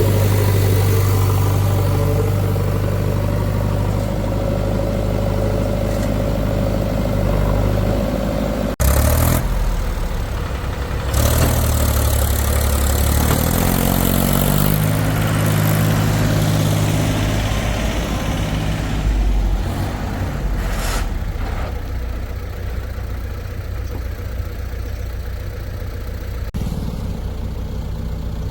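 Heavy diesel machinery running steadily. The sound changes abruptly about nine seconds in, and a few seconds later an engine revs up, its pitch rising, then settles back to a steady run.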